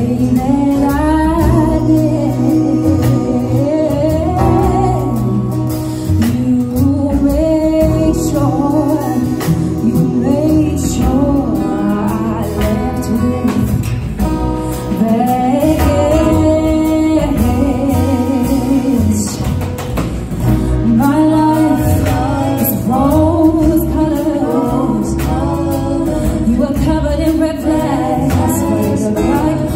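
Live band performing a song: a woman sings the lead melody into a microphone over upright bass and acoustic guitar.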